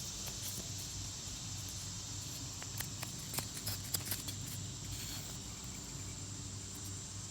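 Insects, crickets by the sound, chirring in a steady high drone, with a handful of light clicks and taps in the middle as wooden fireboard pieces are handled.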